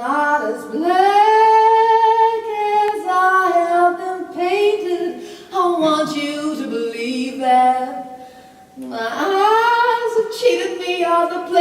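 A high solo voice singing unaccompanied in long held notes, breaking off briefly about nine seconds in before the next phrase.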